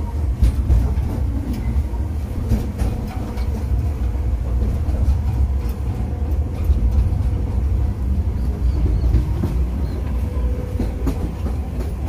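Narrow-gauge tourist train running along its track, heard on board: a steady low rumble with scattered clicks from the wheels and rails.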